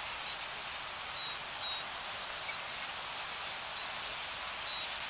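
Outdoor nature ambience: a steady rushing hiss with short, high bird chirps every second or so, one sliding upward about halfway through.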